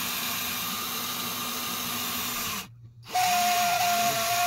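Cordless drill turning the drive of a gummed-up Mustang power seat track to move the rail by hand. It runs steadily, cuts out briefly a little past halfway, then starts again louder with a higher steady whine.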